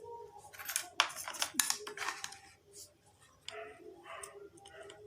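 Scattered small clicks and taps of tools and parts being handled while the battery is unsoldered from the speaker's circuit board.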